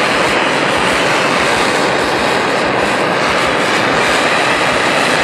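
Propane torch flame burning with a steady, loud rush while it heats a brass tube and square steel bar joint for silver brazing.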